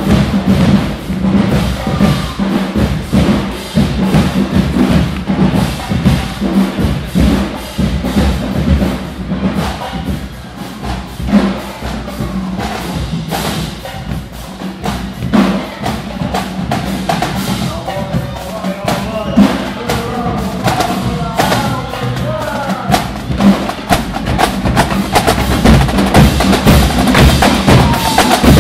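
Marching drumline playing a fast, dense cadence of snare and bass drum hits, growing louder near the end.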